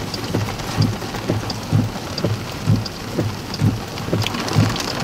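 Heavy rain beating on a vehicle's windshield and roof, with a regular low thump about twice a second.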